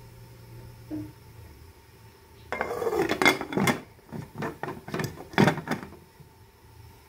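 Aluminium pot lid being worked onto the pot with a potholder, scraping and clattering against the rim in a quick run of knocks for about three seconds, beginning a couple of seconds in.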